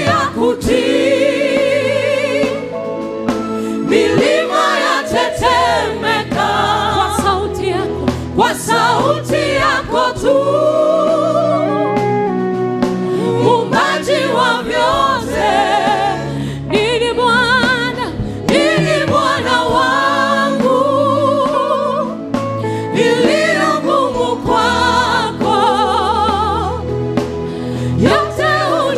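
Gospel worship song: voices singing together as a choir, with vibrato, over instrumental backing with steady bass notes.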